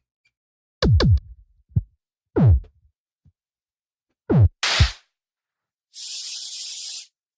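Opening of a beatbox loopstation performance: a handful of separate deep beatboxed kicks, each dropping in pitch, spaced out with silences between, then about a second of steady hissing noise.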